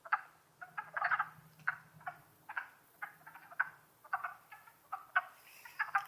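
Chorus of wood frogs calling: short, hoarse, duck-like clucks, a few a second from several frogs overlapping.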